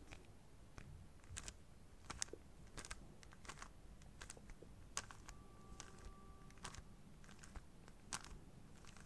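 Magnetic 3x3 speedcube turned quickly by fingers through an F2L algorithm: a faint run of irregular clicks and clacks as the layers turn and snap into place. About halfway through, a steady squeak lasting over a second comes from the cube.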